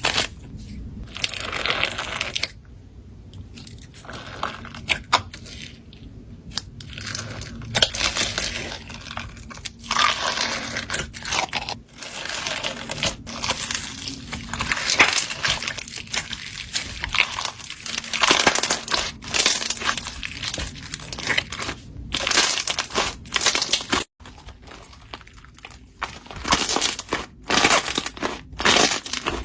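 Slime squeezed and pressed by hand, a dense run of irregular crackles, crunches and sticky pops, with a few brief pauses.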